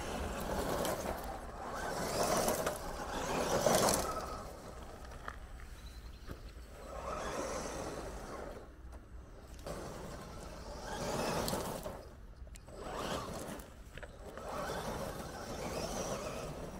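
Absima Sherpa radio-controlled truck driving on loose gravel. Its electric drivetrain runs while its tyres crunch and scrape over the stones. The sound swells and fades several times as the truck comes close and moves away, and it is loudest about four seconds in.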